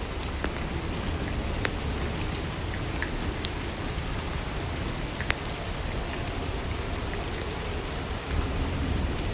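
Steady rainfall with scattered sharp taps of single drops.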